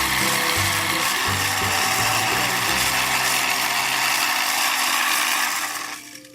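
Small battery-powered motor of a toy household appliance running with a gear rattle, then stopping about five and a half seconds in.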